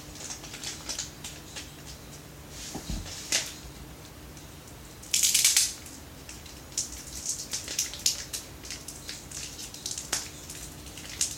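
Hands crinkling and rustling packaging, with scattered short crackles while trying to open it by hand. A louder crackling burst comes about five seconds in.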